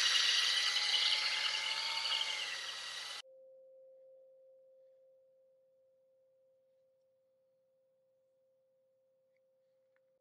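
Cordless drill spinning a wooden dowel against sandpaper held around it: a steady motor whine with a rough sanding hiss that cuts off abruptly about three seconds in. After that only a faint steady tone that fades away, then near silence.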